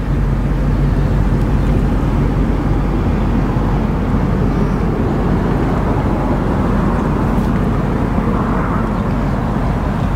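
BMW 745Li's 4.4-litre V8 idling steadily, heard at the rear of the car near the dual exhaust.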